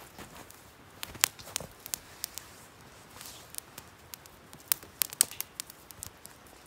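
Small campfire of dry twigs crackling, with irregular sharp pops and snaps, a couple of louder cracks about a second in and again around five seconds in.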